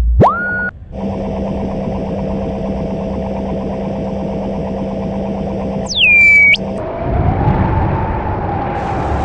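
Synthetic sound effects. A tone rises at the start over a steady electronic hum. About six seconds in, a loud whistle falls in pitch and cuts off abruptly. A noisy, wavering rumble follows and runs on.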